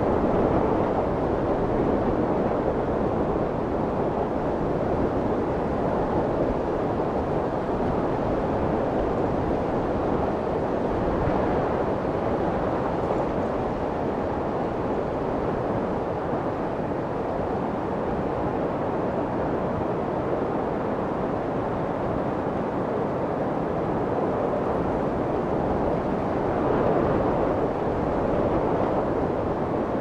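Steady, unbroken rushing white noise with a few slight, slow swells in level.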